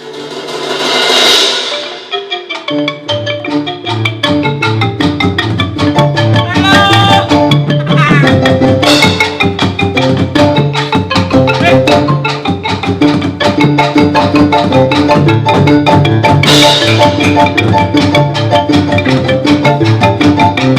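Music: a rhythmic piece led by xylophone-like mallet percussion over a repeating drum and bass pattern. It comes in about two seconds in, after a brief swelling wash of noise.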